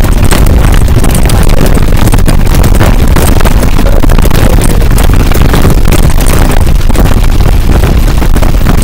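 Loud, overloaded rumble from a camera riding in a towed bike trailer: wind buffeting the microphone and the trailer jolting over the road. It goes on steadily, with many small knocks.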